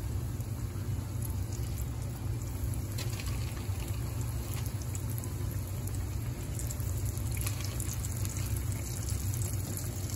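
Breaded bluefish pieces sizzling in hot frying oil, a steady hiss with faint crackles, over a steady low hum.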